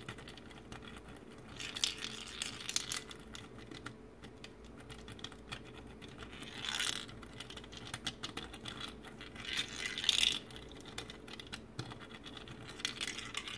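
Small metal ball clicking and rattling as it rolls down the plastic tracks of a 3D-printed marble machine, with fine ticking as its top knob is turned by hand to lift the ball. Four louder rolling runs stand out over the steady clicking.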